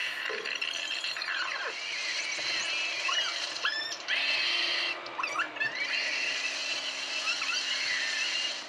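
In-car dashcam audio played back at three times normal speed: a run of high-pitched squeaky chirps and rising and falling glides over a steady hiss, with a low steady hum coming in about five seconds in.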